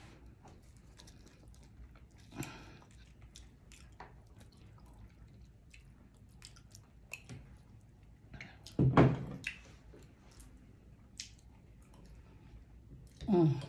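Close-up eating sounds: fried flounder being chewed, with many small wet clicks from the mouth. Two louder mouth sounds stand out, one about two-thirds of the way through and one near the end that falls in pitch.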